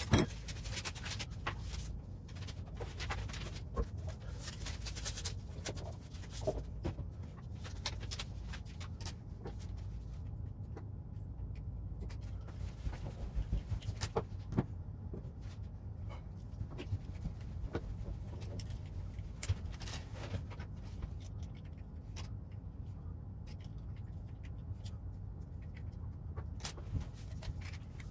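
Scattered small clicks and taps of tools and plastic and metal parts being handled while an RC truck is reassembled, over a steady low hum.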